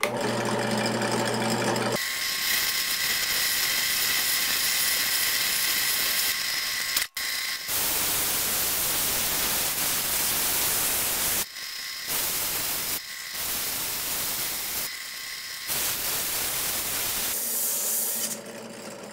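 Bench drill press running, spinning a wooden cylinder: a steady motor hum at first, then from about two seconds the loud hiss of sandpaper held against the turning wood, over a steady whine. The sanding breaks off briefly about seven seconds in and drops and resumes several times later on, as the sandpaper is pressed on and lifted off to finish the turned piece.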